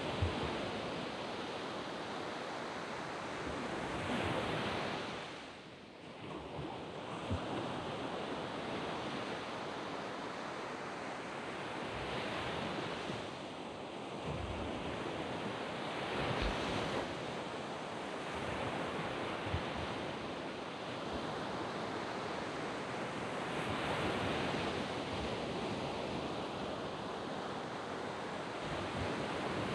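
Waves breaking and washing up on a sandy beach, surging every few seconds with a brief lull about six seconds in, with some wind on the microphone.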